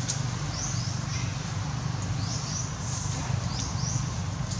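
Short, high-pitched rising animal chirps, repeated every half second or so, over a steady low hum and hiss.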